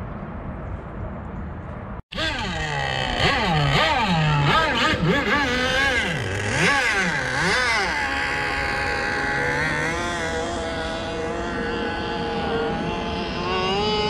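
Radio-controlled model boat's small engine revving hard, its pitch swooping up and down again and again, then running steadier with a few rises near the end. Before it, for about two seconds, a low rumbling noise with no engine note, ending in a cut.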